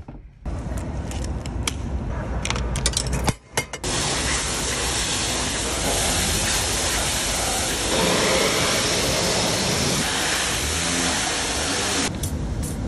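Pressure washer running: its motor drones steadily and the water jet hisses as it blasts a mountain bike's drivetrain and frame. A few clicks come in the first few seconds, and the hiss eases near the end while the motor keeps going.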